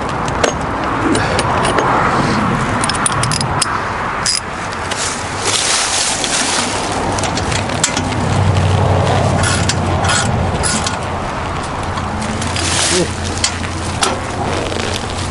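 Socket wrench and steel sockets clicking and clinking as the bolts holding a go-kart's rear rack are undone, in scattered sharp clicks throughout. A low, steady rumble swells about halfway through.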